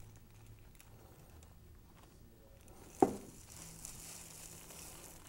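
Silica gel crystals pouring and rattling out of a plastic dryer chamber onto a plastic bag, faint, with a single sharp knock about three seconds in.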